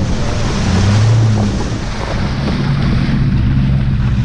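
Off-road vehicle's engine running at low revs with a deep exhaust note. It swells briefly about a second in, then settles back to a steady rumble.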